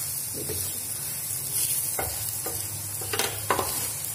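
Egg paratha sizzling in oil on a flat tawa griddle, with a spatula scraping and knocking against the griddle several times as the paratha is flipped and pressed down.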